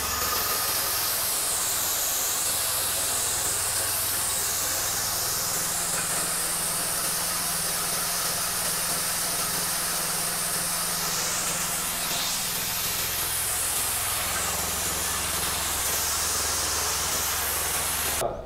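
Small single-cylinder petrol engine running steadily under load, driving a hammer-mill chopper-grinder that grinds dried corn kernels into flour, with a loud steady hiss from the milling.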